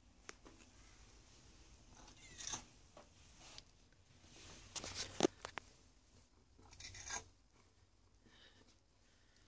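A ginger cat brushing against the camera close to the microphone: short rustling scrapes with a few sharp clicks, three times, the loudest about five seconds in.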